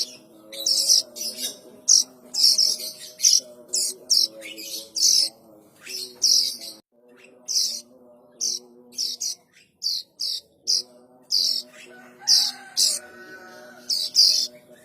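Young plain prinias (ciblek sawah) calling: short, high chirps repeated several times a second, with brief pauses. A steady low hum runs underneath.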